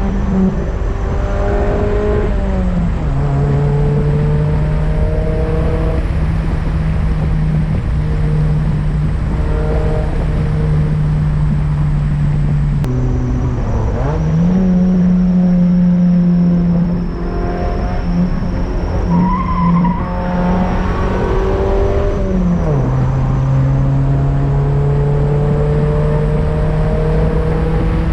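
Honda Accord wagon's F22B1 four-cylinder engine pulling steadily while driving. Its pitch drops at gear changes about 3 seconds and 23 seconds in, jumps back up around 14 seconds, and climbs slowly in between.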